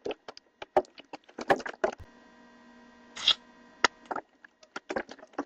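An irregular series of sharp clicks and knocks, some single and some in quick clusters, over a faint steady hum.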